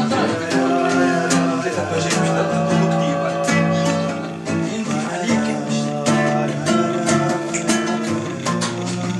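Nylon-string classical guitar played fingerstyle: a fast, busy run of plucked notes and chords.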